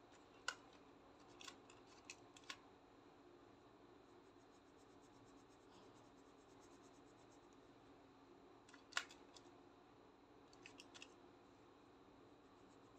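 Felt-tip marker caps clicking off and on as colours are switched: a few sharp clicks, the loudest about half a second in and near nine seconds in. Between them, a faint quick scratching of a marker tip colouring on paper.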